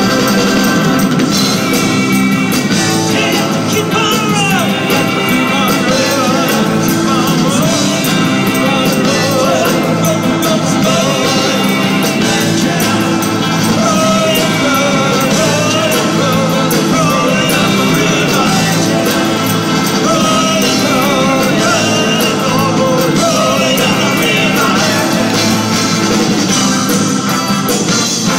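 A rock band playing live, with a male lead vocal over electric guitar and keyboards.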